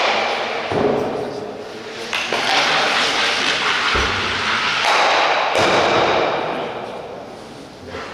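Ice stocks striking one another with hard knocks and thuds, each followed by a long sliding rush that fades near the end.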